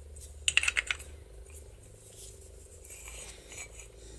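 Hueck gearbox window handle and its small metal slide piece being handled, giving a quick cluster of sharp metal clicks about half a second in, then faint clicks and rubs over a steady faint hum.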